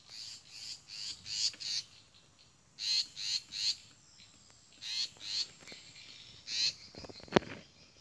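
Grey-backed shrike parents giving harsh scolding alarm calls in short runs of several notes, the sign of birds defending their nest of chicks. A single sharp click near the end.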